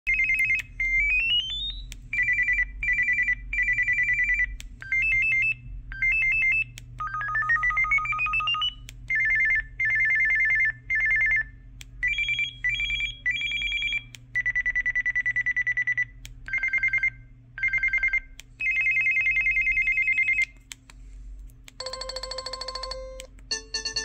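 Samsung A620 flip phone's preloaded single-tone ringer alerts, previewed one after another through its small speaker. Each is a short electronic beeping pattern a second or two long: some warble between two pitches, some sweep upward, and a click falls between one tone and the next. Near the end comes a lower, buzzier tone.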